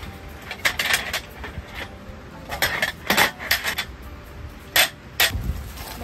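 Light clinks and clatters of hard objects being handled, in several short groups, with the two sharpest knocks about half a second apart near the end.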